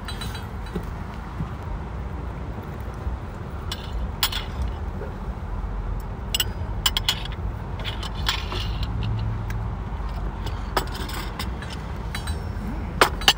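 Spoons clinking and scraping against bowls and dishes during a meal: scattered sharp clinks over a steady low rumble.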